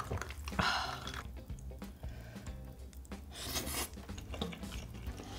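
Soft background music under mouth and glass sounds of a person drinking from a glass. There are two short noisy bursts: one just under a second in, and a sharper, hissier one about three and a half seconds in.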